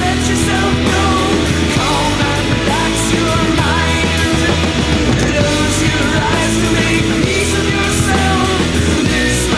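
Loud recorded song with a singer over a steady drum beat and bass.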